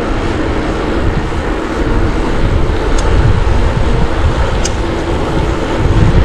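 Wind buffeting the camera microphone while cycling: a loud, rough rumble with two faint clicks, about three and four and a half seconds in.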